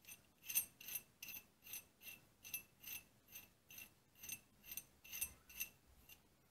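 Steel lock nut being turned by hand down the threaded end of a mini lathe headstock spindle, giving faint metallic clicks about two to three times a second as it goes on. The nut's thread is cut out of true, which the owner calls threaded way out of whack.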